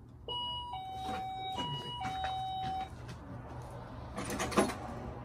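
Electronic two-tone door chime sounding a high-low ding-dong twice in a row, each note held steady. A brief clatter follows about four and a half seconds in.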